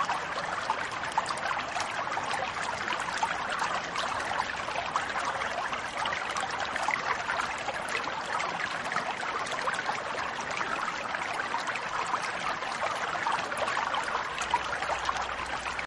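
Running stream water trickling and babbling steadily, full of small splashing ticks; it sets in abruptly at the start.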